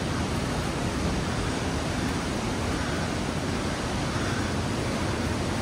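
Steady rush of a waterfall, an even roar of falling water with no breaks.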